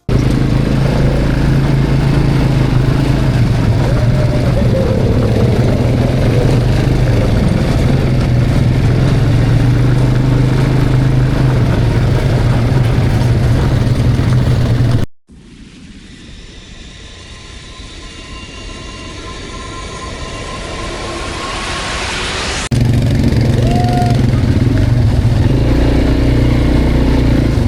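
Quad bike engines running steadily. About halfway there is a sudden cut to a quieter passage that swells in level for several seconds, then the engine sound returns.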